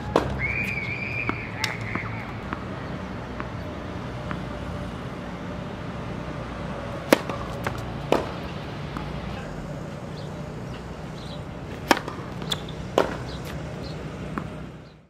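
Tennis serves on an outdoor hard court: sharp pops of the racket striking the ball, with ball bounces. There are two serves, one about seven seconds in and one about twelve seconds in, each followed by further bounces, over a steady low outdoor hum.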